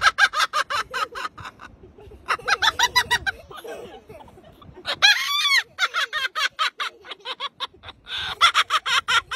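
A white parrot calling in quick bursts of short, harsh, clucking notes, about eight a second, with one longer drawn-out call about five seconds in.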